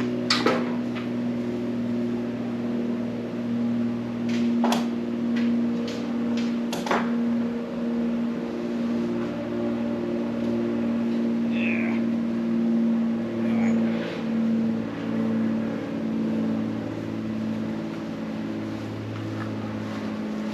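A steady machine hum with a low, even pitch that wavers slightly, broken by a few sharp knocks and clatters in the first seven seconds.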